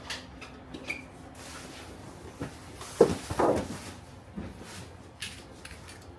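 Background noise of a busy indoor market with scattered clicks and knocks of things being handled; the loudest is a sharp knock about three seconds in.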